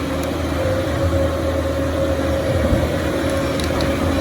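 Engine of a tracked demolition machine running steadily, with a constant whine over the low engine hum.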